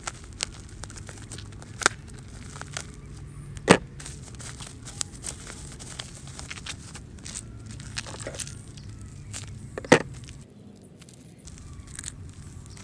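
Black plastic wrapping and packing tape being cut and peeled open by hand: crinkling and crackling plastic with scattered tearing and sharp snaps, three of them much louder than the rest.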